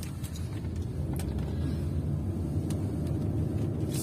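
Steady low rumble of a car driving, engine and tyre noise heard from inside the cabin, with a few faint clicks.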